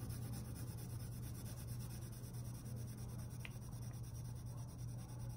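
Pencil shading on cereal-box cardboard: a soft, steady scratching of graphite strokes, over a steady low hum.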